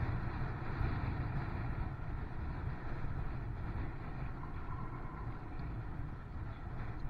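Steady wind rumble on a bicycle-mounted camera's microphone, with tyre noise from the bicycle riding on a wet tarmac lane.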